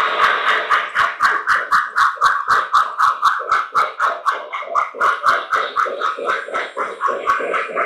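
Sound-equipped model steam locomotive chuffing steadily as it runs, about four to five chuffs a second.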